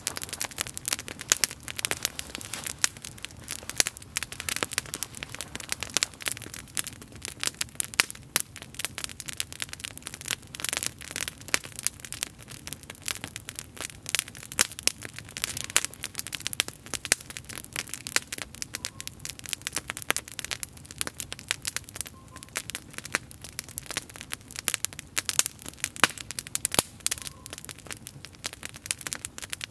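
Small wood campfire crackling, with a dense, irregular run of sharp pops and snaps.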